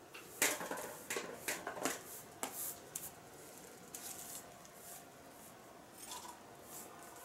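Gardening work on a balcony: a quick run of short, sharp strokes over the first three seconds, then a few fainter ones.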